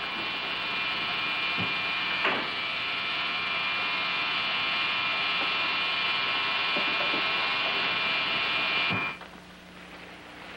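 A steady electric buzz with a high, whining edge that cuts off suddenly about nine seconds in, with a knock about two seconds in.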